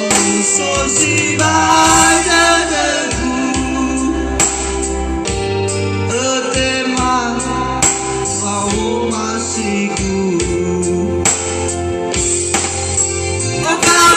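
Music: a man singing with instrumental accompaniment, guitar and a steady bass line underneath.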